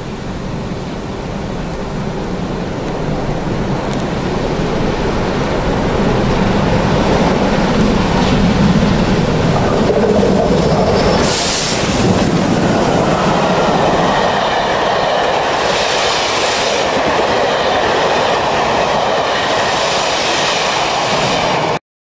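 Two steam locomotives double-heading a passenger train, LMS Black Five 4-6-0 No. 45231 leading BR Britannia Pacific No. 70000, growing louder as they approach and run past at speed. A brief hiss comes about halfway as the engines go by, followed by the rattle and clickety-clack of the coaches' wheels. The sound cuts off suddenly just before the end.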